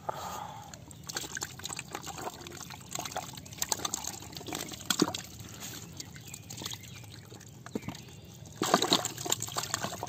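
Muddy water splashing and sloshing in short irregular strokes as hands scoop live catfish out of a small flooded pit, with a louder burst of splashing near the end.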